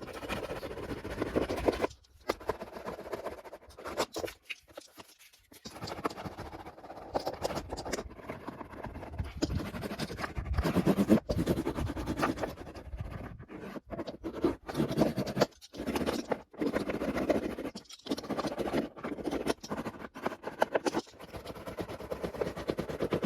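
A hand roller rolling a freshly stuck sound-deadening mat down onto a car door's inner metal panel, to press out trapped air. The sound is a run of scraping, rubbing strokes broken by short pauses.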